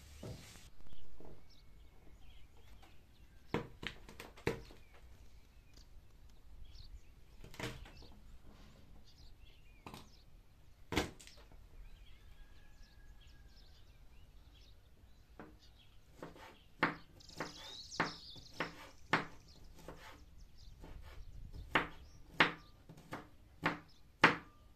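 Large kitchen knife chopping garlic cloves on a bamboo cutting board: a few scattered single knocks at first, then a quicker run of chops over the last several seconds.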